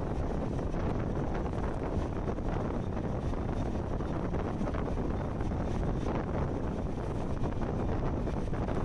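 Wind buffeting the microphone from a moving train, over the steady low rumble of the train running along the track.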